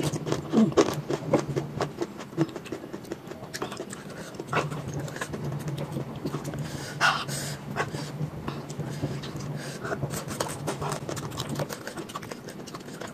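Close-up mouth sounds of someone eating chili-spiced papaya rujak: wet chewing and lip smacks, with panting breaths and a longer hissing breath about seven seconds in, the reaction to the chili heat. A low steady hum runs underneath.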